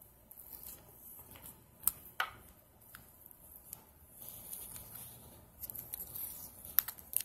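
Scattered small clicks and taps of a plastic earphone cable winder being handled, with a soft rustle about four seconds in and a quick run of louder clicks near the end.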